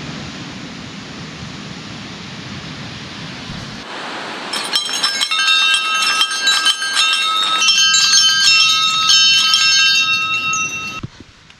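An even rushing noise, then from about four and a half seconds many small metal bells ringing together, their overlapping tones struck again and again. The sound cuts off suddenly near the end.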